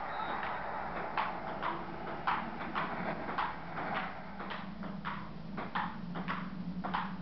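Ping pong ball clicking back and forth off paddles and table during a rally, about one sharp click every half second, over a steady low hum.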